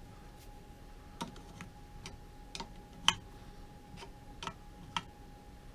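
Irregular sharp metallic clicks, about seven of them with the loudest about three seconds in, from a 13 mm wrench working the nut that holds the bench grinder's capacitor. A faint steady high hum runs underneath.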